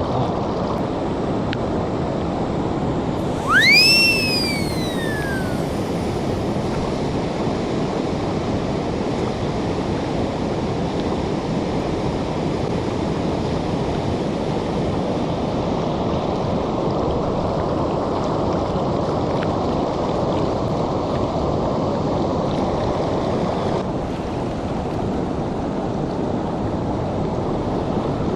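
River water rushing steadily. About four seconds in, one loud whistle rises, then slides down over a couple of seconds.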